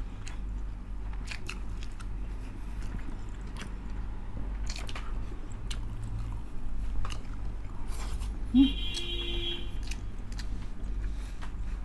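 Close-miked mouth sounds of eating pork dinuguan and rice: chewing with scattered wet smacking clicks. A brief hum about eight and a half seconds in.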